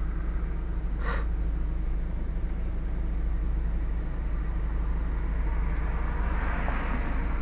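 Steady low rumble of a car idling in traffic, heard from inside its cabin. There is a brief click about a second in, and a swell of traffic noise near the end as police cars pull out onto the road.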